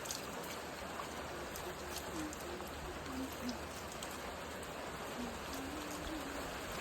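Milk streams hissing and splashing into a pail as a water buffalo is milked by hand.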